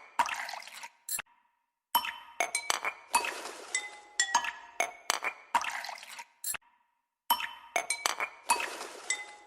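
Background music made of bright, glassy clinking chime notes, struck in quick runs. It stops dead twice for about half a second, about a second in and again past the middle.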